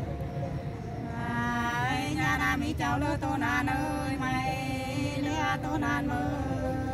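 Hát sli, the Nùng folk song style, sung in long held, wavering notes. A new phrase glides up and swells in about a second in.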